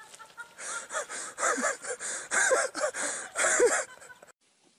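Goat giving a run of about seven short, raspy cries, each rising and falling in pitch, getting louder toward the end.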